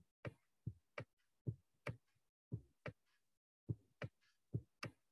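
A run of short, sharp clicks, about two to three a second with a brief pause partway through, from scrolling down through a document on a computer.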